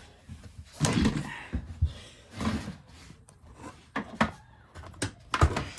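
Plastic vacuum cleaner housing being handled and turned over, giving a series of scattered knocks and clatters.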